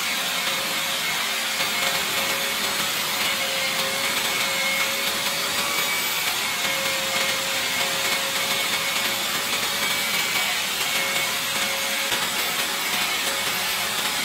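Angle grinder fitted with a sanding disc running steadily, with a constant whine, while a small wooden part is held against the disc and sanded to shape.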